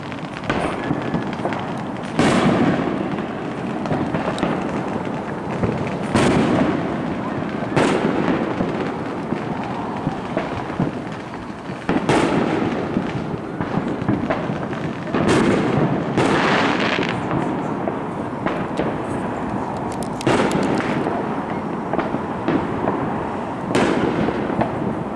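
Fireworks bursting in the sky: about eight sharp bangs, two to four seconds apart, each trailing off in a rolling echo.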